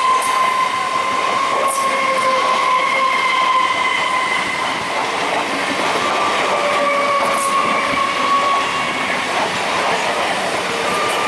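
A passing train's wheels running over the rails, with a steady high-pitched whine that wavers slightly in pitch and a few sharp clicks from the track.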